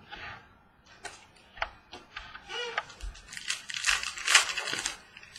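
Football trading cards being handled and flipped through: irregular light clicks and rustling, with a denser burst of crackly rustling a little past the middle.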